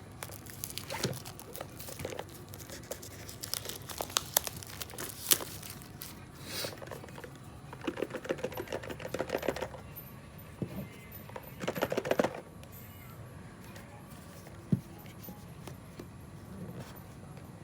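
Packaging being handled: crinkling and tearing with scattered sharp clicks, and two stretches of rapid crackling, one just before the middle and a shorter one about two-thirds of the way through.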